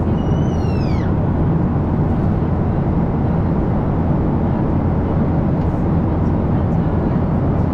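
Steady cabin noise inside a Boeing 737-800 airliner, the continuous low rush of its engines and air. Near the start a short whistle-like tone slides down in pitch for about a second.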